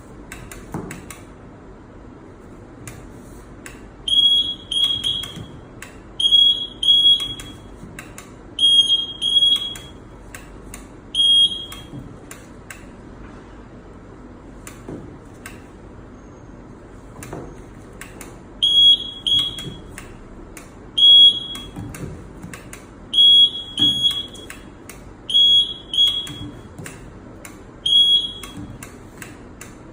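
Tower light (stack light) buzzer sounding short, high-pitched beeps, mostly in pairs, every two seconds or so, in two runs separated by a pause of several seconds. Faint clicks sound between the beeps.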